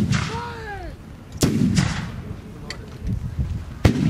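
Black-powder muzzle-loading cannons firing blank charges one after another down the battery: a heavy blast about a second and a half in that rumbles on afterwards, and another sharp report near the end.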